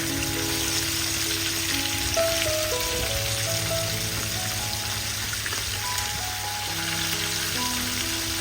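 Background music, a slow melody of held notes, over a steady sizzle of chicken wings frying in hot oil.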